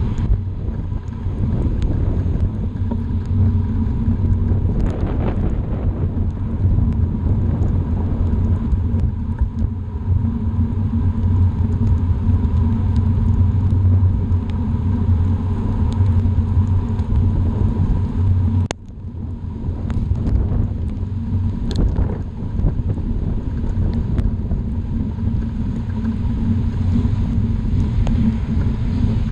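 Steady low rumble of a bicycle rolling on a wet road, with wind buffeting the microphone and the tyres on wet pavement. A few light clicks come through, and the rumble drops out briefly about two-thirds of the way through.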